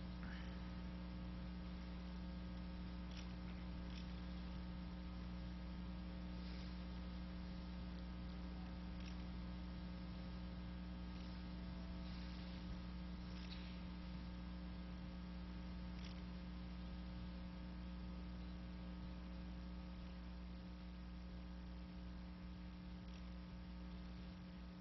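Steady electrical mains hum from the sound system over a faint hush of a large quiet hall, with a few faint brief noises scattered through it.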